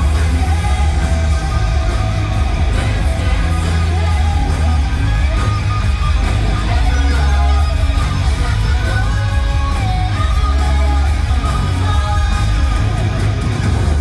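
Loud rock music from a live stage show: heavy bass and electric guitar, with vocals over the top.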